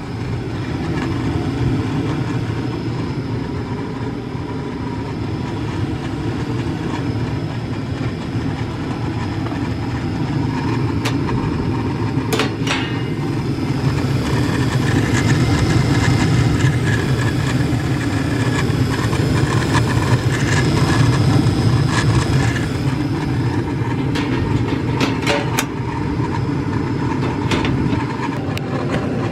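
Carrier 58PAV gas furnace running steadily, a low whooshing rumble of burner and fans, with a few sharp clicks about a third of the way in and again near the end.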